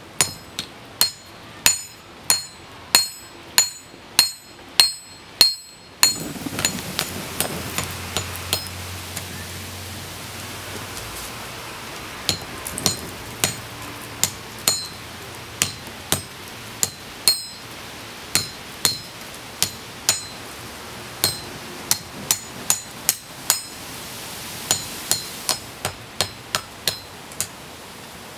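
Hand hammer forging red-hot rasp steel on an anvil: sharp blows, each with a bright metallic ring. The blows come in a steady rhythm of nearly two a second at first, then in runs with short pauses. A steady background noise comes up about six seconds in.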